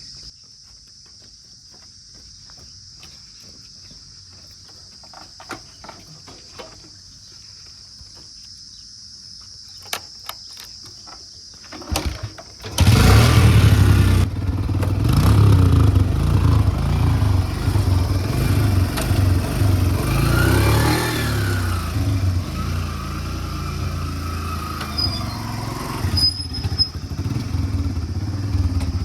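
A heavy diesel engine of a construction vehicle starts abruptly about thirteen seconds in and runs loudly with a low, throbbing beat, its pitch rising and falling briefly around the twenty-second mark. Before it, only a steady high-pitched drone and a few scattered clicks.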